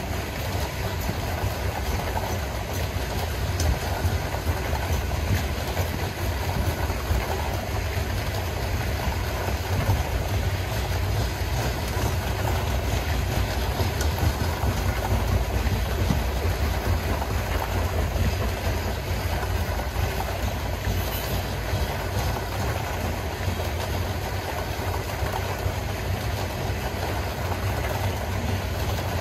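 Freight train rolling past on the rails, a steady low rumble of the cars going by.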